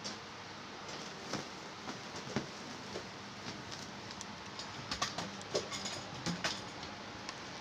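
Scattered light clicks and taps of handling, most of them a little past the middle, over a steady background hiss.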